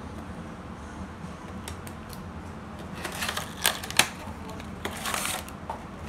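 Clear plastic toy packaging being handled: crinkling and a few sharp clicks starting about halfway through, two of them loud, over a low steady room hum.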